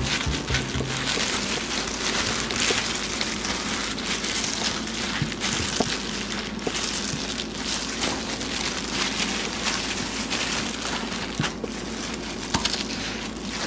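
Plastic food-prep gloves and a bamboo kimbap rolling mat rustling and crinkling steadily as a kimbap roll is rolled and squeezed by hand, with a few soft clicks from the slats.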